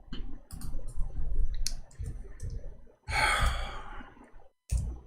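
A man's long sigh, breathed out close to the microphone about three seconds in and fading over a second or so, after low rumbling and small clicks of breath and handling.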